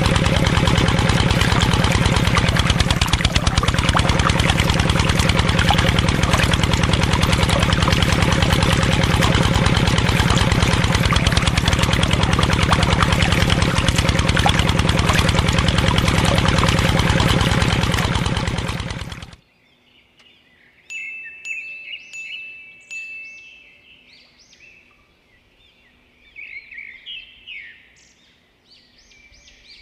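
Small motor in a miniature orange engine housing running steadily, spinning a propeller on a thin shaft that churns water in a homemade PVC-pipe axial pump; it cuts off suddenly about nineteen seconds in. Faint bird chirps follow over the last ten seconds.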